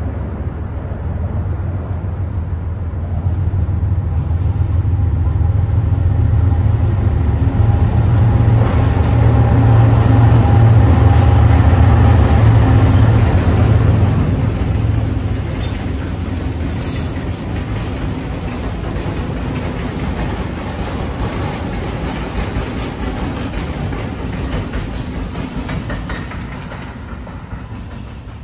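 A string of diesel-electric freight locomotives passing close by. The deep engine rumble builds to its loudest about ten seconds in, then eases off as the trailing units roll past, with wheel clatter on the rails.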